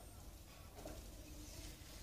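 Quiet outdoor background: a faint low hum with scattered faint, indistinct sounds and no clear bird calls.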